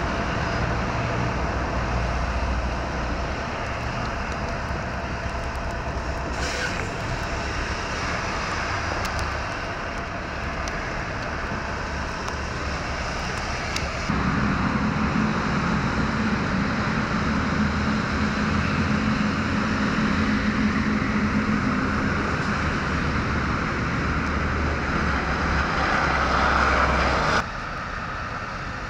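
Road traffic noise from vehicles driving on snowy city streets, a steady hiss and rumble that changes abruptly twice. A steady engine hum joins in the middle.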